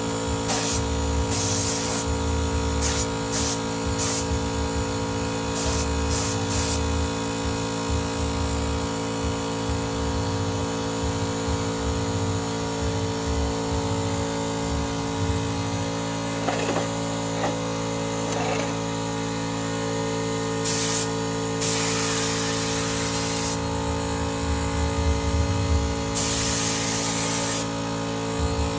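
A 24-litre Motomil air compressor runs with a steady hum. Short bursts of compressed air hiss in the first few seconds, and two longer blasts of about a second and a half each come near the end.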